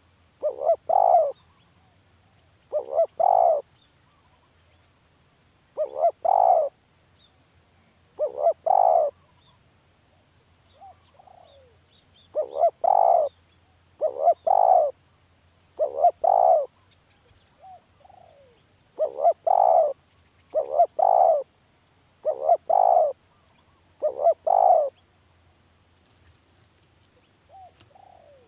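Spotted dove cooing over and over, each phrase a short group of two or three coos, repeated every couple of seconds with two longer pauses. A few fainter sliding notes fall in the gaps.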